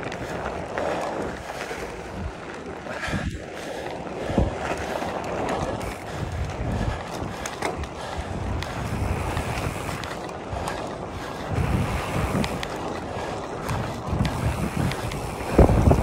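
Wind buffeting the microphone in uneven low gusts over a steady rushing noise, with a few short knocks.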